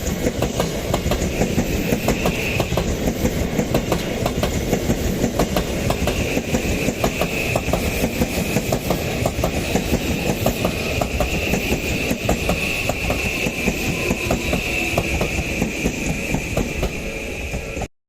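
Odakyu Romancecar MSE (60000-series) electric train passing at speed just in front of the level crossing: a steady heavy rumble with fast, rhythmic clacking of the wheels over the rail joints. The sound cuts off suddenly at the very end.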